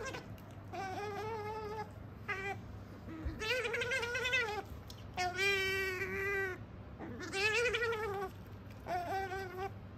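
Asian small-clawed otter calling over and over while begging for food: about six whining squeals with a wavering pitch, each about a second long. The longest and steadiest is held for over a second about halfway through.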